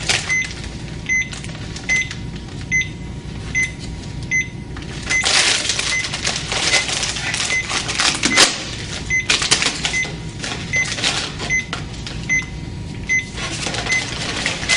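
Cardiac monitor-defibrillator giving its short high heartbeat beep, one beep about every 0.8 s (roughly 75 a minute), in time with the patient's pulse. From about five to ten seconds in there is loud plastic crinkling and peeling as a packet of defibrillation pads is handled and the pads are unpeeled.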